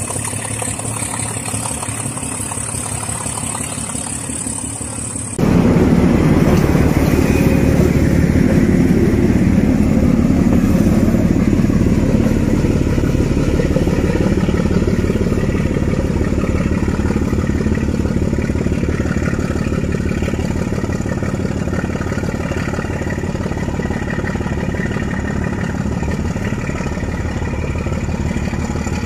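D12E diesel locomotive's engine running under power, a fast steady throb, loud from about five seconds in and slowly fading as the locomotive moves away. Before that there is a quieter stretch with a steady high hiss.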